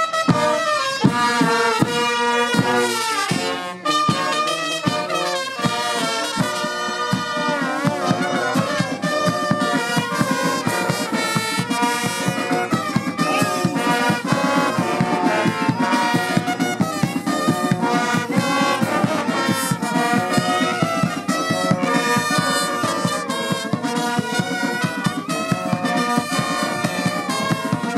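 Marching brass band playing a tune: trombones, sousaphones and other brass horns over a steady drum beat.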